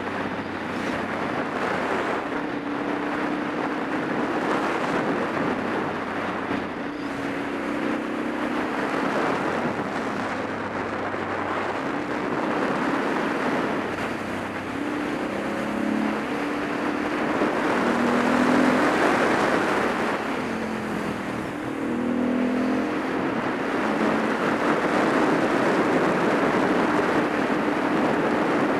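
Supermoto motorcycle engine running on the move, its note rising and dropping in pitch with the throttle, over a steady rush of wind and road noise.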